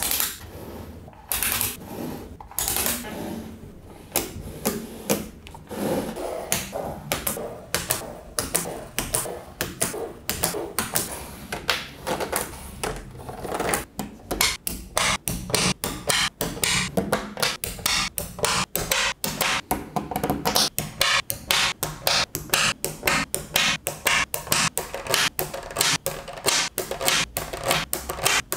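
Small magnetic balls clicking and snapping together one after another as they are fitted into place. A few louder snaps at the start, then a quick run of sharp clicks that grows denser from about halfway through.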